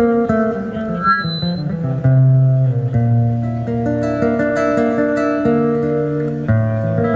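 Music played on plucked string instruments, a guitar among them, with sustained low notes underneath from about two seconds in.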